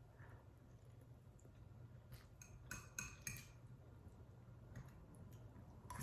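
Cutlery clicking lightly against a dish, a handful of faint sharp clicks in the middle, over a low steady hum.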